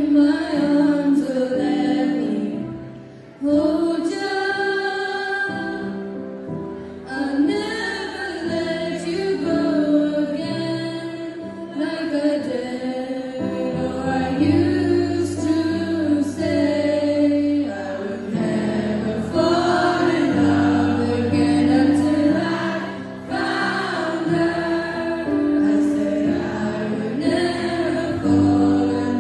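Three teenage girls singing a song together, their voices picked up by handheld microphones and amplified through the hall's sound system.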